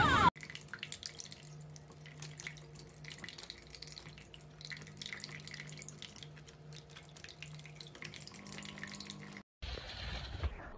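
Water dripping and splashing in a small pet drinking fountain as a budgerigar bathes in it, with many quick fine drips over a low steady hum. Near the end it is cut off by about a second of louder rushing noise.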